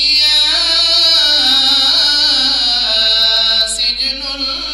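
A man reciting the Quran in the melodic tajweed style: one long held phrase with wavering, ornamented pitch, tapering off near the end.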